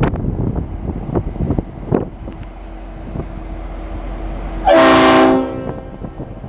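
Leslie RS5T five-trumpet air horn on a diesel locomotive sounding one short blast about five seconds in, a chord of several notes at once. Before it, gusts of wind buffet the microphone.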